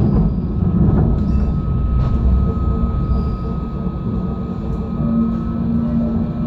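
Alstom RegioCitadis tram running between stops, heard from inside the car: a steady rumble of wheels on rails with a thin high tone held throughout. A couple of short clicks come about one and two seconds in.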